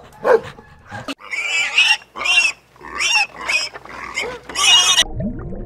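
A puppy yelps once, then piglets squeal in a run of short, shrill calls for about four seconds.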